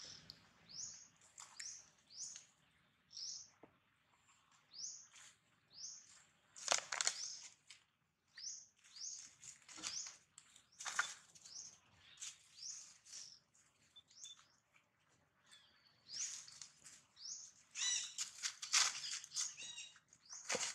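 A small bird calling over and over: a short rising high chirp a little under two times a second. Louder, harsher bursts break in a few times, the strongest near the end.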